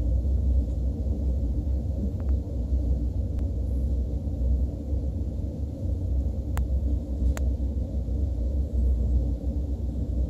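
Steady low rumble of a KTX high-speed train running, heard inside the passenger cabin, with a few faint clicks.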